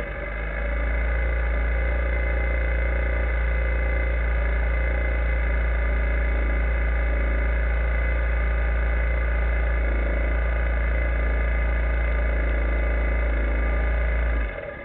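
Linhai ATV engine idling steadily, heard through a camera mounted on the quad, with a strong deep hum. It stops abruptly near the end.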